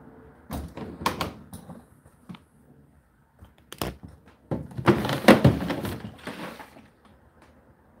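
Indesit condenser tumble dryer's plastic front door pushed shut with a few knocks and clicks. About four and a half seconds in, the condensed-water container drawer slides out of its slot, scraping and clicking for about two seconds.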